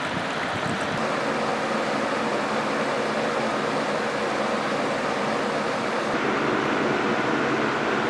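Box fan fitted as an evaporative cooler running on high speed: a steady rush of air with a low motor hum.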